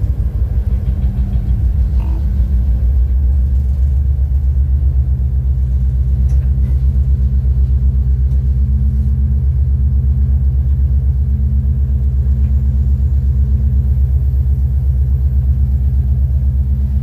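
Diesel-electric freight locomotive under way, its engine running steadily as a deep, evenly pulsing drone heard inside the cab.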